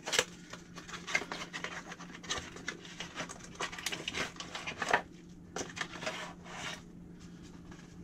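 Bubble wrap and plastic packaging crinkling and rustling as they are pulled off a power cord by hand. The handling is dense for about five seconds, then comes in shorter bursts and fades.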